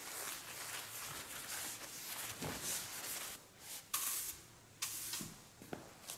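Broom bristles swishing across a tiled floor in repeated sweeping strokes, with two sharper swishes about four and five seconds in.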